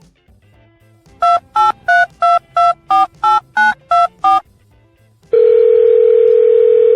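Touch-tone telephone keypad: ten short two-tone beeps in a quick even run as a number is dialed, then a steady telephone tone lasting about two seconds.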